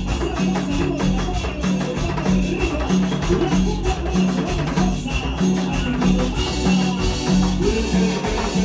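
Live cumbia band playing a dance rhythm: bass notes repeating about twice a second under keyboard and drums.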